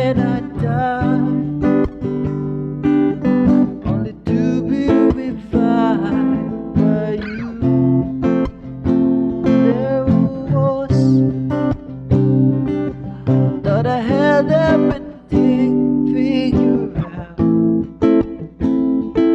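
A man singing while strumming an acoustic guitar, close to a condenser microphone.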